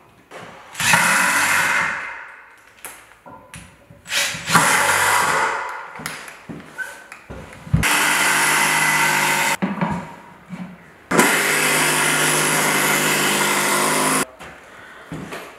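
Cordless drill running in four bursts of about one to three seconds, the last two long and at a steady speed, boring into a timber stair post with a 16 mm speed bore. Small knocks between the bursts.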